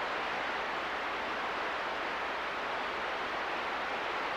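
CB radio receiver putting out steady static hiss with no one transmitting.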